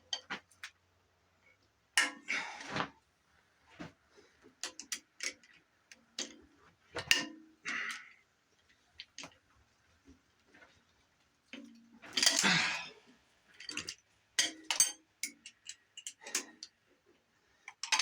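Socket wrench ratchet clicking in short, irregular bouts, with metal tool clinks, as the cylinder head bolts are worked loose on a Chrysler 318 V8.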